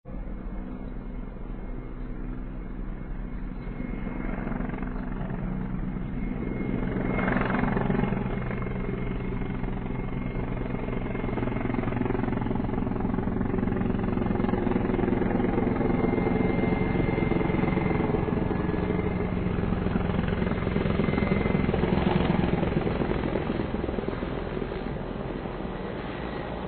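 Mil Mi-35M twin-turbine military helicopter running, its rotor and engines heard together with a thin high whine over them. It grows louder, peaking about eight seconds in and again about twenty-two seconds in, and eases off a little near the end.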